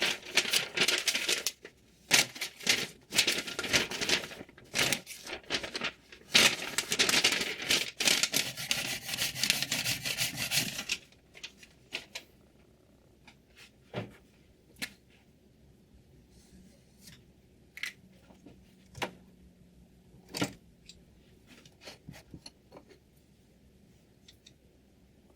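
Diamond sharpening stone rasping along a knife blade in quick repeated strokes, which stop about 11 seconds in; after that there are only scattered light clicks and taps.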